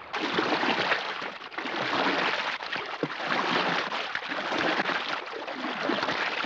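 Water rushing and splashing, starting suddenly and swelling and easing every second or so.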